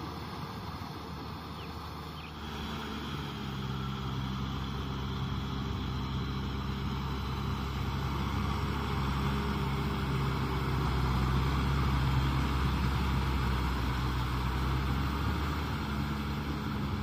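Kubota M6040SU tractor's diesel engine running steadily under load while it drives a rotavator through flooded paddy mud, with the churning of the tiller beneath it. The engine note grows louder after about two seconds as the tractor comes close, and is loudest around the middle.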